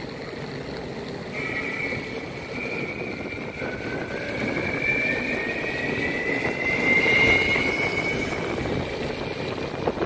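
Evolve electric skateboard under way on tarmac: a steady wheel-and-road rumble, with the motor whine coming in about a second in and rising slowly in pitch as the board picks up speed.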